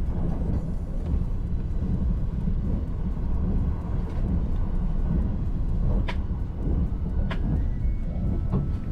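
Running noise of an E353-series limited express train at speed: a steady low rumble of wheels on rail, with two sharp clicks a little over a second apart near the end.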